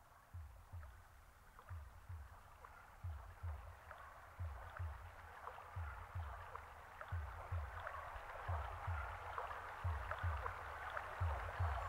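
Water trickling and bubbling, with soft low lapping thumps coming every half second or so, growing steadily louder.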